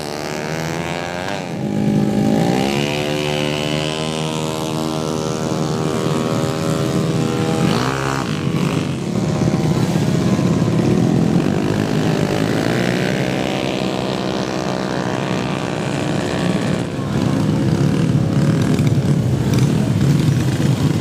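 Tuned drag-racing motorcycle engines revving hard, their pitch sweeping up and down several times, then running in a rough, steady mix in the last few seconds.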